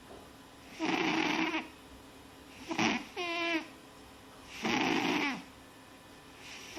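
A small sleeping animal snoring: rasping breaths alternate with squeaky, whistling ones, one breath about every two seconds.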